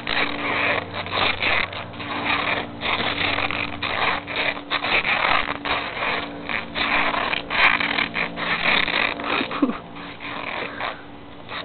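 Adhesive tape being pulled off the roll in rasping, crackling strips as it is wound around a head and face, with muffled nasal breathing through the taped mouth.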